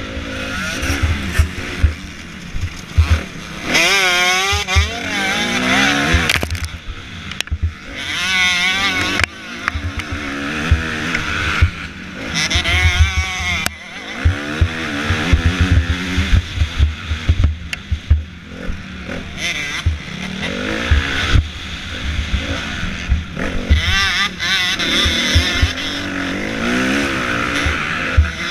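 Motocross bike engine under race load, heard close up, revving up and dropping back again and again as the rider accelerates and shifts. Repeated short low thumps run underneath.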